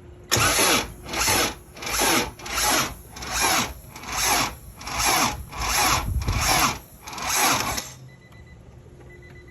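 About ten rhythmic back-and-forth rasping strokes, a little more than one a second, like a hand tool being worked against material. They stop about eight seconds in.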